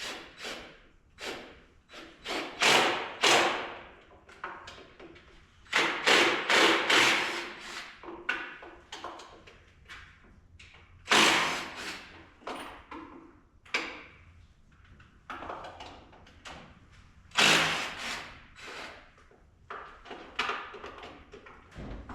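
Irregular knocks, clicks and thumps of parts and tools being handled during hands-on shop work on a truck, with louder clattering bangs about three, six, eleven and seventeen seconds in.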